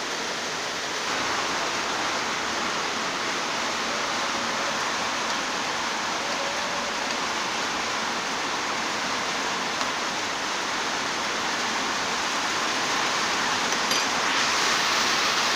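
Water with grated carrots and aloe vera at a boil, giving a steady hiss of bubbling that grows a little louder about a second in and again near the end.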